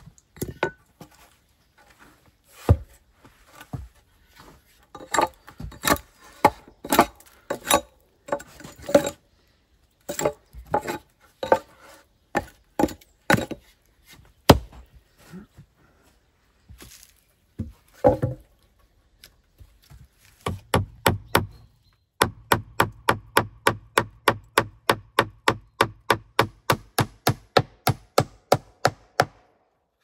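Irregular wooden knocks of logs and boards being handled and struck with a hatchet, then a fast, even run of blows, about three a second, lasting several seconds and stopping just before the end.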